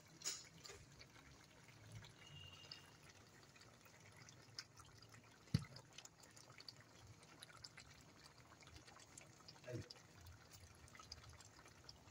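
Faint bubbling and small pops of pork humba sauce simmering in a pot, with one sharp knock about halfway through.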